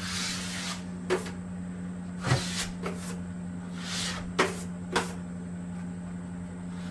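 Plasterer's taping knife scraping setting compound over wall joints, with several sharp taps of the knife, over a steady low hum.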